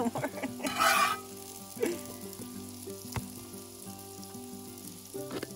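A metal spatula scraping scrambled eggs across a carbon steel skillet, loudest about a second in, with a few lighter scrapes and taps after, over food sizzling on a propane griddle.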